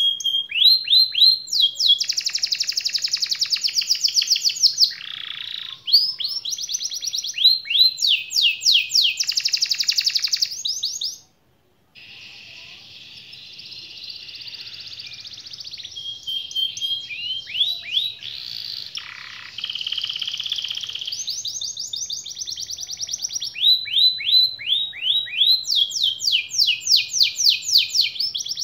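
Domestic canary singing a long, continuous song of fast rolling trills and repeated sweeping notes. The song breaks off abruptly for under a second about eleven seconds in, then carries on.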